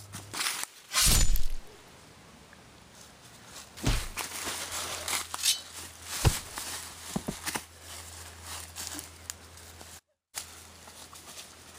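Dry fallen leaves crunching and rustling underfoot as people run and scuffle on a leaf-covered forest floor, in irregular crackles and crunches. A loud rush of noise comes about a second in, and a faint steady low hum runs beneath from about four seconds on.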